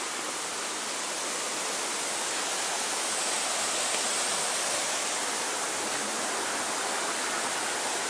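Mountain stream rushing over boulders: a steady hiss of running water, a little louder around the middle.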